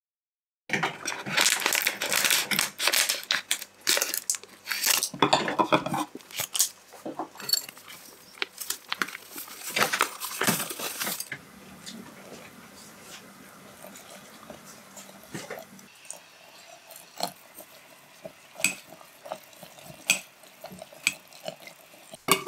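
Kitchen clatter of utensils and glassware, dense and loud for the first half. Then it goes quieter while hot water is poured into a glass jar, followed by a few light clinks of chopsticks against the glass as the mixture is stirred, with a sharper clink at the end.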